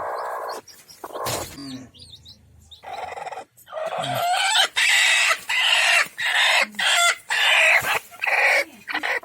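Chickens calling: a few scattered clucks, then a close run of loud, rough squawks from about four seconds in.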